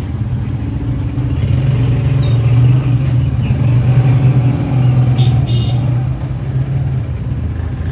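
An engine running steadily with a low hum, swelling a little in the middle and easing off again, with a few faint high chirps over it.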